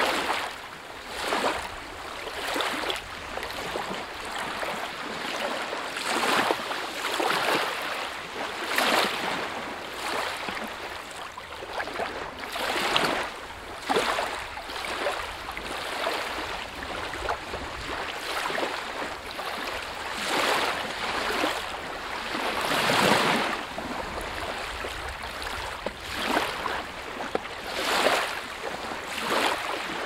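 Small lake waves lapping and splashing in irregular surges every second or two, with one larger splash about three-quarters of the way through.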